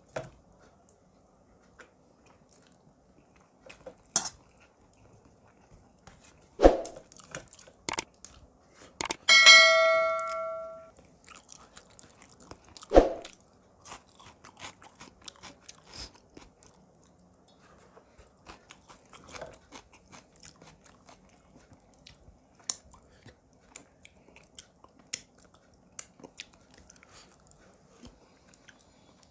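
Close-up eating sounds: chewing, with scattered clicks and taps of cutlery and dishes. About nine seconds in, a dish is struck and rings for a second or so.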